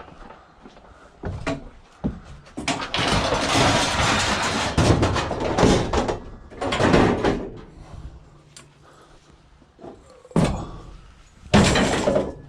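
Scrap metal being handled: a long stretch of clattering and scraping, then several separate loud bangs.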